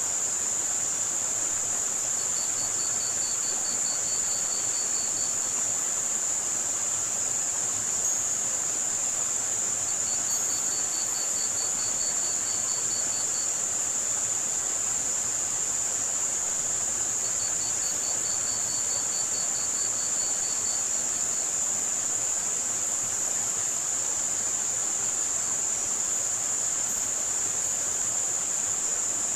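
A steady, high-pitched band of white-noise hiss made for tinnitus masking, over a soft even wash of running water. Cricket chirping trills in three runs of about three seconds each, spaced roughly seven seconds apart.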